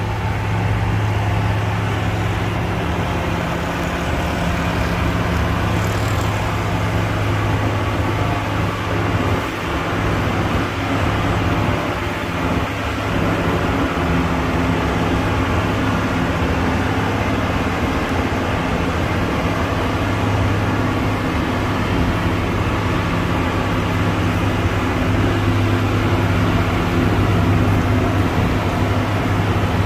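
Motor grader's diesel engine running steadily, a low drone that holds the same pitch throughout.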